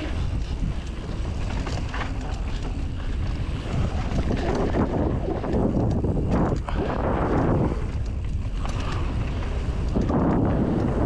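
Wind rumbling and buffeting on the microphone, swelling in gusts about five seconds in and again near the end.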